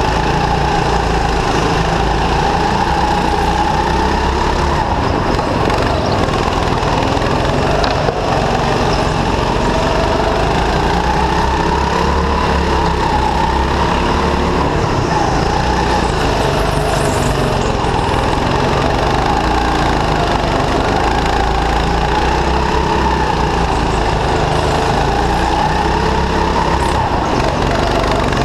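Go-kart's small petrol engine running close up, its pitch rising and falling again and again as the kart accelerates down the straights and slows for the corners.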